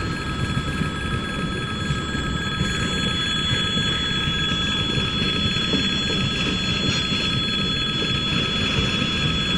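A freight train of boxcars, containers and tank wagons rolling steadily past, its wheels rumbling on the rails, while the level crossing's electric warning bell rings on without a break.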